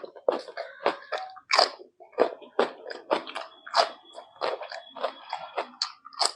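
Close-miked chewing of rice with mutton and egg curry: wet mouth smacks and clicks, several a second, in an irregular rhythm.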